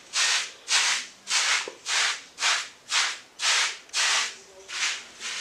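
Hard-bristle wave brush stroking over short hair lathered with shampoo, a rhythmic rasp at about two strokes a second.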